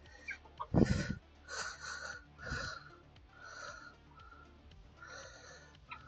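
A long wood screw being turned out of the wooden treadle base with a screwdriver, giving a run of short squeaks about once a second, with a dull knock about a second in.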